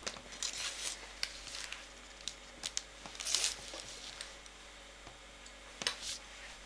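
Knife slicing through puff pastry onto baking paper: short, soft scraping strokes, one cut after another, with light crinkling of the paper.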